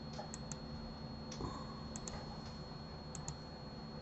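Faint clicking of a computer keyboard and mouse, in quick pairs at a few moments, over a steady faint high whine.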